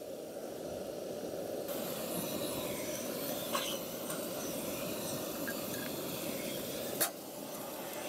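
Handheld gas torch blowing a steady hissing flame into firewood in a small fire box to light it, with a sharp click about seven seconds in.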